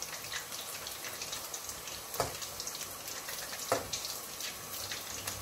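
Battered chicken breast pieces sizzling and crackling in hot sunflower oil in a frying pan, a steady hiss full of tiny pops. Twice, about two and three and a half seconds in, the metal fork turning the pieces clinks lightly against the pan.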